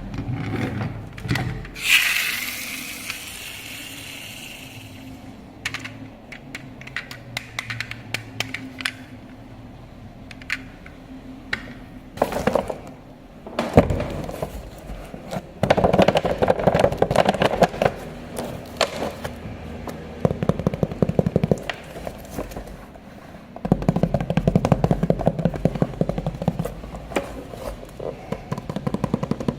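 Toy off-road RC car driving over rough ground: its tyres and plastic body scrape and clatter, with many sharp knocks. The rattling is dense for long stretches about halfway through and again near the end.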